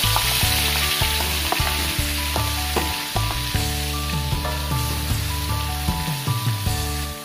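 Dried anchovies sizzling as they fry in hot oil in a wok, stirred with a wooden spatula; the sizzle stops abruptly near the end.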